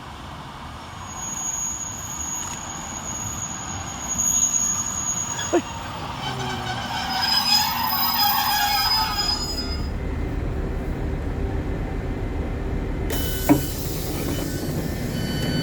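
Passenger train running and braking, with high-pitched wheel squeal. A sudden hiss starts near the end.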